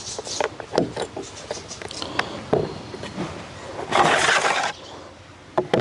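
Clicks and knocks of chainsaw parts being handled, with a short rasping noise about four seconds in.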